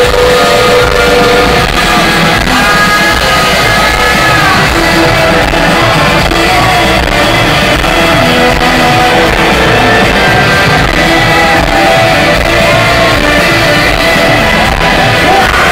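Live rock band playing loudly in a large concert hall: electric guitars and drums, with a voice singing over them, recorded from within the crowd.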